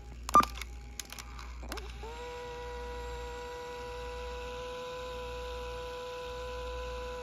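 Panasonic RQ-SX50 cassette Walkman: several clicks of its transport buttons, a sharp loud one about half a second in. About two seconds in, playback starts as a steady held tone with overtones, sliding up in pitch briefly at its start, over a low mains hum.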